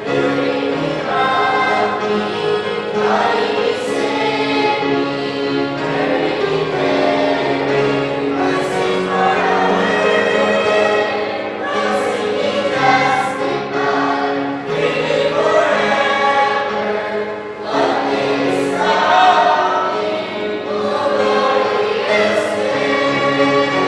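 Mixed choir of men's and women's voices singing a gospel hymn in harmony, with long held notes.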